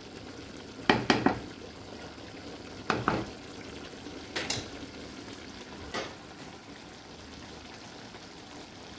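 Chicken-feet adobo simmering in a pan with a steady sizzle, while a spoon stirs it and knocks against the pan: a quick double knock about a second in, then knocks near three seconds, around four and a half seconds, and a lighter one at six.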